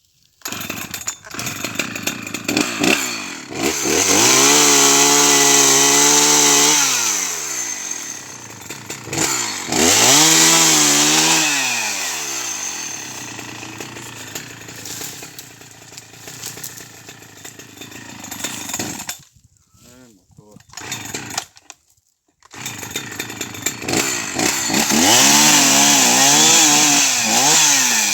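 Chainsaw cutting firewood, revving up to full speed three times with long high-pitched stretches and dropping back to a lower running speed in between, with two short near-silent breaks about two-thirds of the way through.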